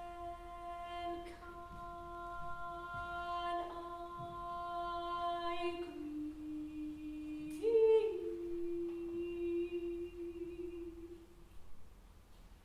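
A woman singing long, steady, held notes in a contemporary piece for voice and electronics. About six seconds in the line steps down to a lower note. A brief, louder, higher note comes near eight seconds, then the first note returns and stops a little after eleven seconds.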